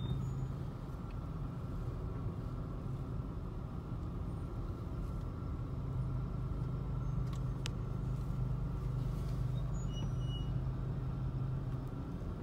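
Steady low drone of a car on the move: engine and road noise heard from inside the cabin.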